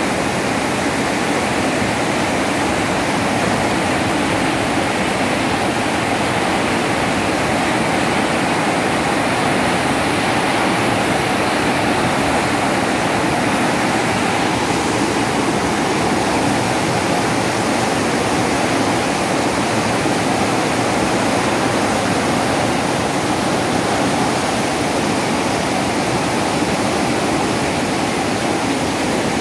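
Muddy river water rushing through a tidal sluice gate in a steady, loud torrent, churning into whitewater below; the gate leaf is stuck and cannot close, so the rising tide pours through.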